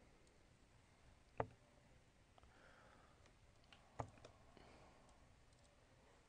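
Two steel-tip darts striking a Winmau Blade 6 bristle dartboard: one sharp impact about a second and a half in and another about four seconds in. Between them there is near-silent room tone.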